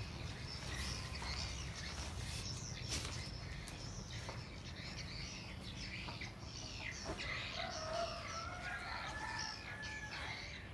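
Small birds chirping repeatedly, with a longer drawn-out call, likely a rooster crowing at a distance, about two thirds of the way in, over a low steady hum.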